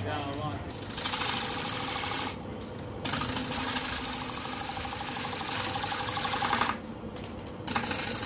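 Wooden disc spinning on an electric belt-driven lathe, with a hand-held turning chisel scraping and cutting into its face. The rough cutting noise comes in long passes and breaks off twice for about a second, leaving the lathe running on its own.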